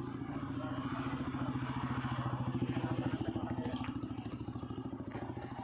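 Mahindra 555 DI tractor's diesel engine idling with a steady, fast chug, growing a little louder in the middle and easing again.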